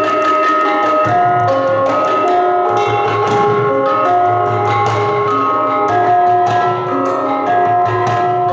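Gamelan ensemble playing: struck bronze kettle gongs ringing overlapping sustained notes in a steady pulse, with hand-drum strokes.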